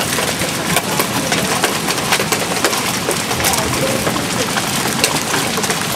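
Nickel-sized hail falling with rain: a dense, steady hiss with many sharp, irregular ticks of stones striking.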